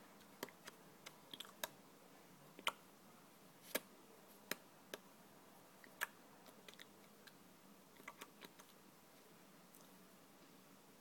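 Irregular small clicks and taps, about fifteen of them scattered over quiet room tone, three standing out louder near the start, middle and about halfway through.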